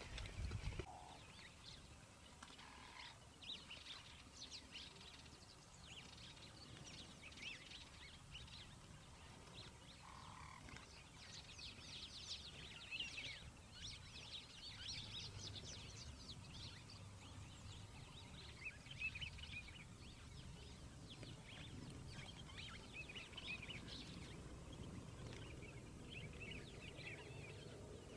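Faint, scattered bird chirps and calls over quiet open-air background sound.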